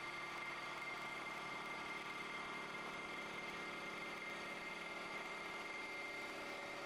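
CNC wood lathe spinning a wooden baseball bat blank as it is turned: a steady machine whine over an even hiss.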